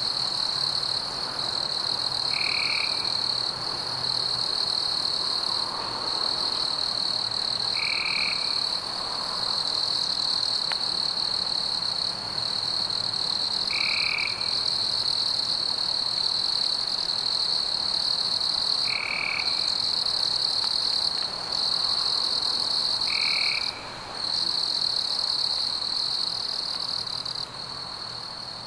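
Background chorus of insects and frogs: a steady high trill, with a short call repeating five times, every four to six seconds.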